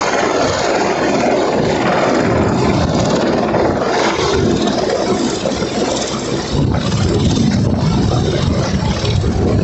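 Large rescue helicopter flying low overhead: a loud, continuous engine and rotor noise with a rapid pulsing beat from the rotor blades.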